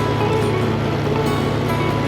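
Music: held notes that change pitch every second or so over a steady low drone.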